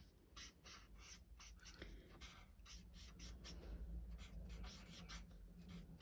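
Faint scratching of a Stampin' Blends alcohol marker's nib stroked across cardstock as the petals are coloured in, about three short strokes a second.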